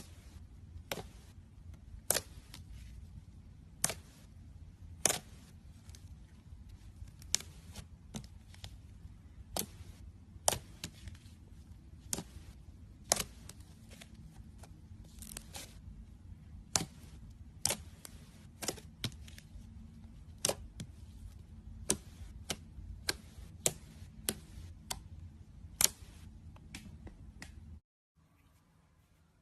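Slime being squeezed and pressed by hand, giving irregular sharp clicks and pops, roughly one or two a second over a low hum, stopping abruptly near the end.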